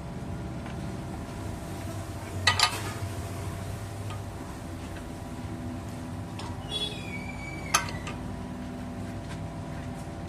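A workshop machine running with a steady hum, with two sharp metallic clinks, one about two and a half seconds in and one near eight seconds in.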